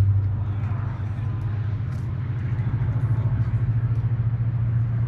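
Steady low rumble with a fine flutter.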